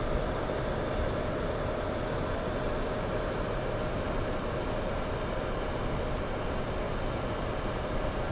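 IQAir Atem car air purifier fan running: a steady, even airy whoosh with a faint steady whine through it.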